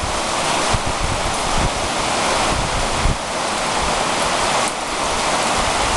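Heavy rain falling on corrugated metal roofs, a loud, dense, steady hiss without let-up.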